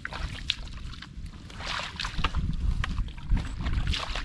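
Shallow muddy water splashing and sloshing in irregular bursts as hands dig and grope through the mud, with wind rumbling on the microphone.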